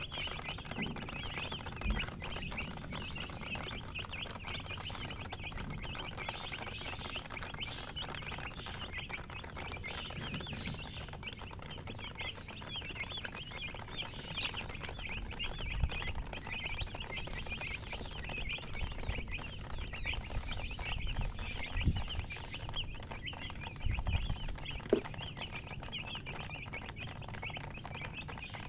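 A brood of baby chicks peeping continuously in a dense, high-pitched chorus. In the second half a single louder peep that rises and falls repeats every couple of seconds, and a few low thumps come through.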